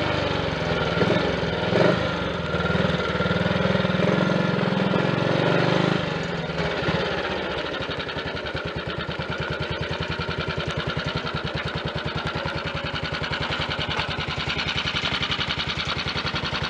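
Triumph Tiger Cub's single-cylinder four-stroke engine running with road and wind noise, then easing to an even, regularly pulsing idle about six seconds in. It runs with no misfire after new carburettor slide, needle, needle jet and main jet.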